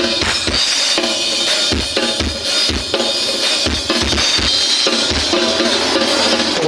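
Drum-heavy music with a steady kick-drum beat, about two beats a second, played loud through homemade line-array speaker boxes with JBL 12-inch drivers during a sound check.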